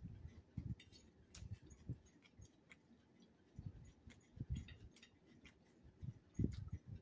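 Faint chewing of salad with soft mouth sounds, and irregular light clicks from a fork against the plate.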